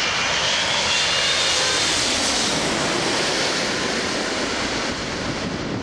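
Jet airliner passing close by, its engines a loud steady roar with a faint high whine. The noise peaks about two to three seconds in and then begins to fade.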